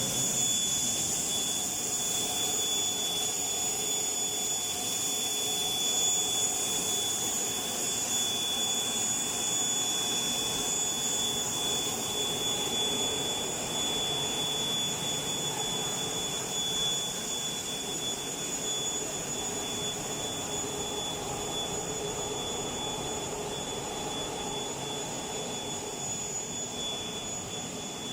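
WPC round profile extrusion line running: a steady machine hum and hiss with a constant high-pitched whine over it.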